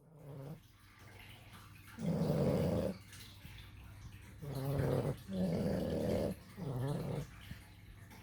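Sleeping puppies snoring: a faint snore at the start, then four louder snores each half a second to a second long, the first about two seconds in and the others close together from about four and a half seconds on.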